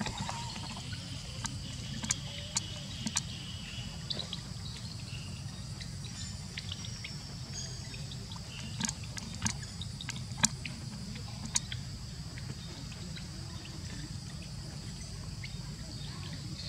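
Outdoor ambience of insects droning in a steady high tone over a low steady rumble, with a handful of sharp clicks and ticks scattered through, the loudest about ten seconds in.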